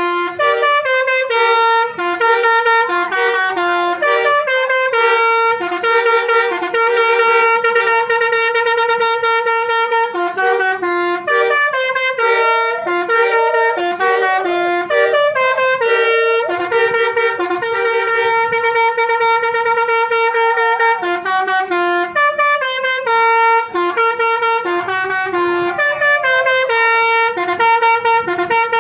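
A 'telolet' multi-tone horn playing a tooting melody of held notes that step between pitches, with a few sliding notes in the middle and brief breaks.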